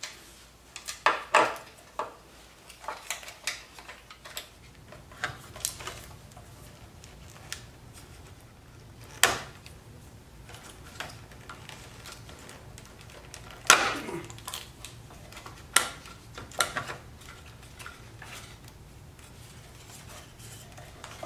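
Scattered clicks, knocks and rattles of hand work on a motorcycle: a T40 Torx T-handle driver turning fasteners and the ECU being worked loose under a Harley-Davidson Road Glide's seat. A few louder knocks come about nine, fourteen and sixteen seconds in.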